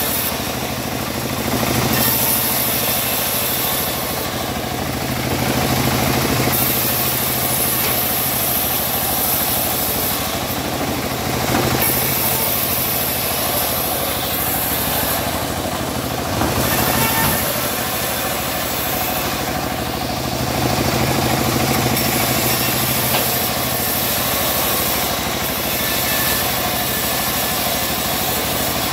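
Homemade band sawmill running and ripping teak boards, the blade sawing through the wood over a steady machine drone. The sound swells every few seconds and then eases.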